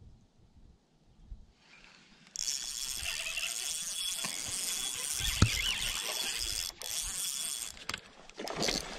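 A fishing reel whirring steadily for about five seconds, starting about two seconds in, as a hooked largemouth bass is played on the line. Near the end comes a short flurry of splashing as the fish thrashes at the surface.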